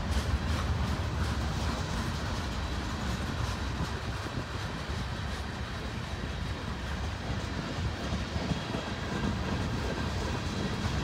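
Freight cars of a long mixed manifest train rolling past: a steady rumble of steel wheels on the rails, with faint clicking as the wheels cross rail joints.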